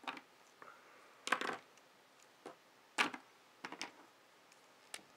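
Pens and a marker picked up and set down on a wooden desk: about half a dozen separate light knocks and clicks.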